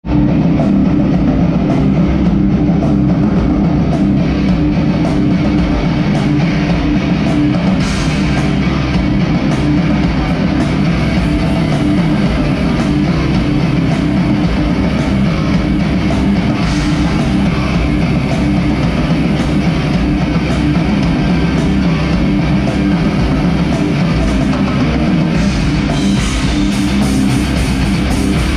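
Metal band playing live, loud and steady: electric guitars, bass guitar and drum kit.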